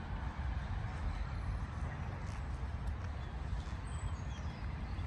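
Steady low rumble of distant city traffic, with a faint high whistle that falls in pitch about four seconds in.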